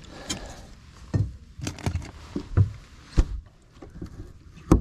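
About half a dozen irregular knocks and thumps on a boat's deck or hull as the just-landed bass and gear are handled, the sharpest knock near the end.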